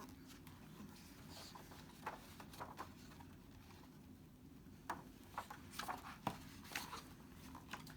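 Faint, scattered paper rustles and light taps from a picture book being handled as its pages are turned.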